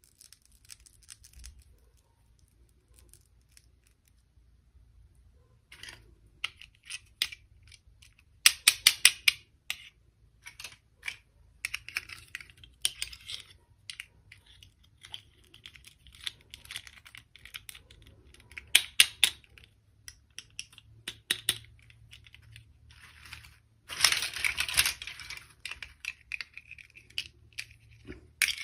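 Hands handling small plastic toy parts and packaging: quick runs of sharp clicks and taps, with a longer rustling, tearing burst a little before the end.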